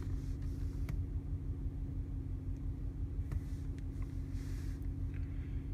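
Car engine idling, heard from inside the cabin: a steady low hum, with a couple of faint clicks.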